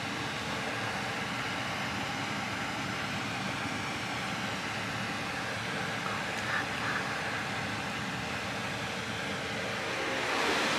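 Steady, even rushing background noise, with two faint brief sounds about six and a half to seven seconds in.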